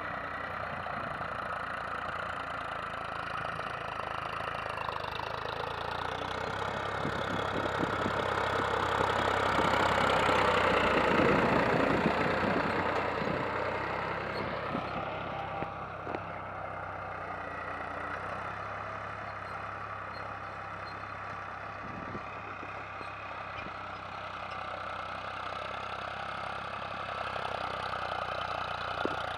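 Farmtrac 45 tractor's diesel engine running steadily as it pulls a spring-tine cultivator through the soil. It grows louder as the tractor passes close, about ten to twelve seconds in, then fades as it moves away.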